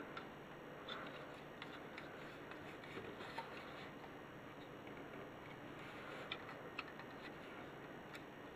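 Faint scattered clicks and rubbing of fingers handling a plastic LEGO boat model, over a steady background hiss.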